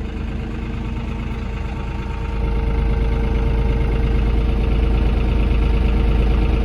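Tractor engine running at low speed while pulling slowly, getting louder and deeper about two and a half seconds in.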